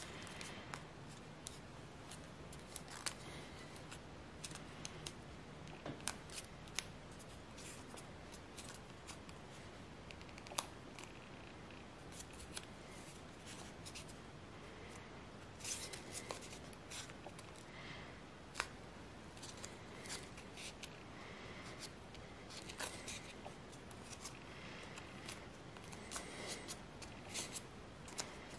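A 15 cm square of origami paper being folded and creased by hand: soft rustling with sharp crinkles and crease clicks at irregular intervals.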